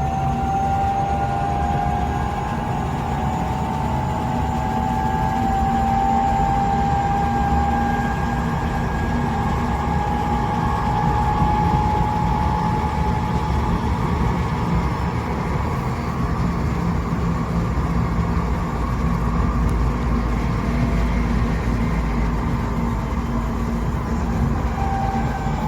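Tokyo Metro 8000 series train running, heard inside the car: a low rumble of wheels on rail under several whining gear tones that rise gently in pitch over the first few seconds, then hold steady. The tones sound muddy and clash with each other, which the uploader puts down to the wheels on only one axle of the bogie having been re-profiled.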